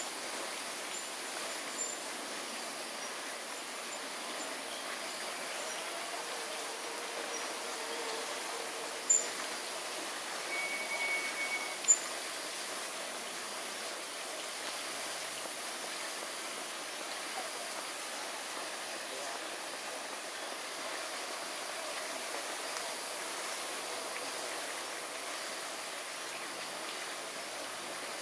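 Steady outdoor background noise with an even high hiss throughout. Two sharp clicks come about three seconds apart in the middle, with a brief thin tone between them.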